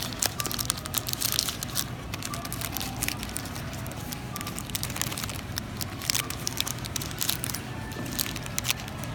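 Candy wrappers crinkling in a run of quick crackles, densest in the first two seconds and again about five to seven seconds in, over a steady low hum.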